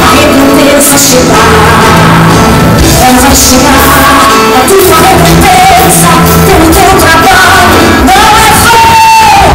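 Live worship music: a singer's voice over a band with sustained keyboard chords, loud throughout.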